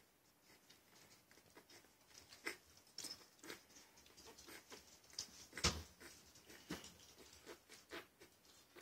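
Shih Poo puppies nursing from their mother: faint, irregular little clicks and smacks of suckling and shuffling, with one sharper click a little past halfway.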